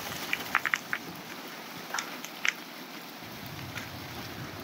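Highbanker spray bar jetting water over mucky gravel in its aluminium hopper, a steady rush of water. Pebbles tick and clatter against the metal and the screen, a quick run of clicks in the first second and a couple more a second or two later.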